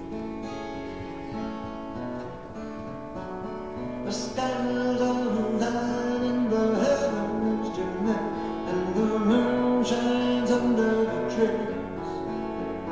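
Acoustic guitar playing the intro of a folk song live, picked and strummed. The music grows fuller and louder about four seconds in.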